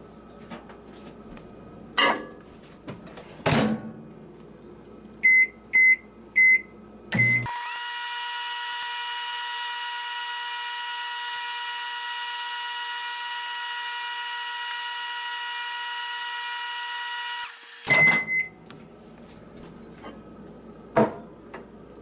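Four short keypad beeps start an Oster microwave oven, which runs with a steady hum for about ten seconds, then stops with a clunk and a beep as the door is opened, with knocks of the mug being handled before and after. The oven runs but does not heat: the water in the mug comes out still cold.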